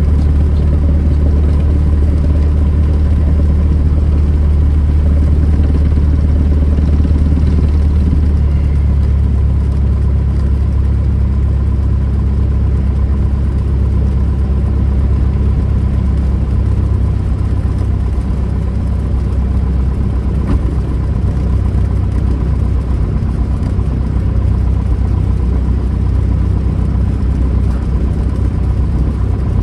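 Single-engine light airplane's piston engine running at low taxi power, its two-blade propeller turning, heard from inside the cockpit. The steady engine note shifts slightly about ten seconds in.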